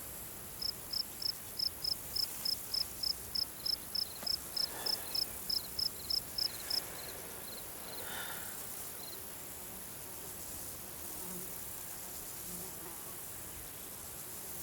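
Cricket chirping in an even series of short high chirps, about three a second, stopping about seven seconds in. A second, fainter cricket chirps more slowly until about nine seconds in, over a steady high insect hiss.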